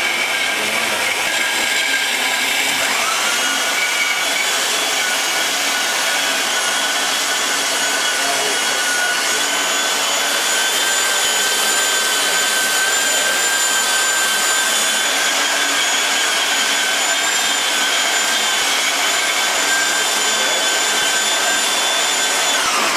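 Steady rushing noise of a motor-driven machine or blower, with a high whine that rises to pitch about three seconds in, holds steady, then drops away near the end.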